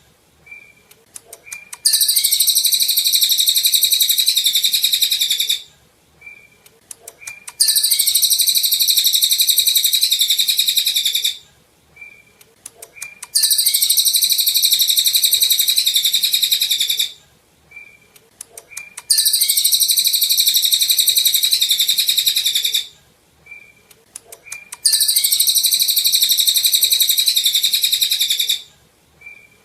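A cililin songbird's rapid, high-pitched twittering song, delivered in loud bursts of about three and a half seconds that repeat five times, roughly every six seconds, with soft short chirps in the pauses between them.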